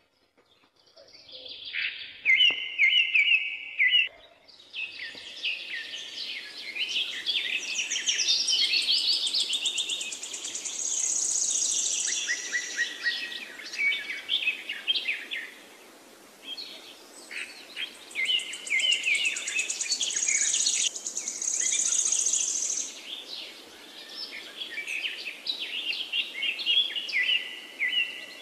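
Songbirds chirping and singing, many quick overlapping calls and trills, starting about a second in.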